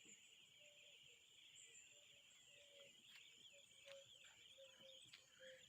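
Near silence with faint outdoor ambience: birds chirping softly over a steady high faint tone, with short low notes repeating about twice a second in the second half.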